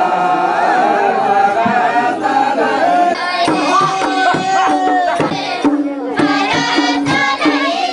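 A group of voices singing a Bhailo festival folk song. A hand drum beats a steady rhythm under it, growing clearer from about halfway through.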